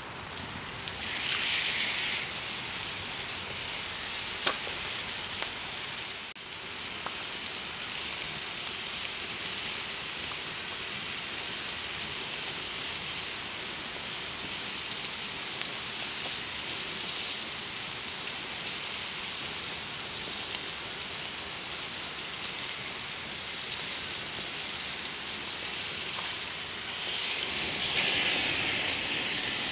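Sausages sizzling steadily in a frying pan over a wood campfire, the sizzle swelling louder about a second in and again near the end.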